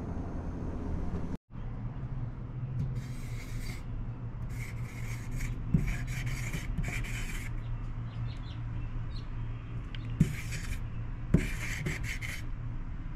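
The 10mm felt tip of a Molotow dripstick squeeze marker dragging across a smooth tabletop as a tag is written. The scratchy rubbing comes in four strokes of varying length, with a few light clicks of the marker against the surface.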